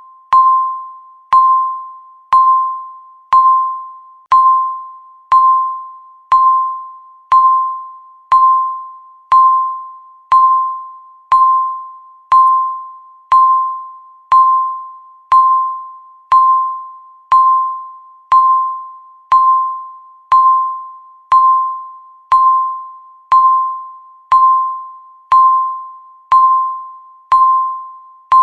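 Countdown timer beep sounding once every second: a single ringing electronic ding of the same pitch each time, starting sharply and fading away before the next.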